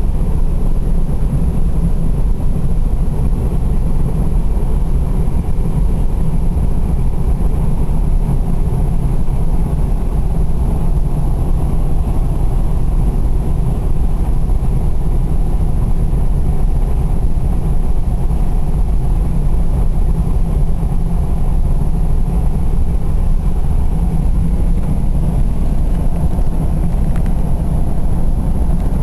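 Steady road and engine rumble heard from inside a car cruising on the highway.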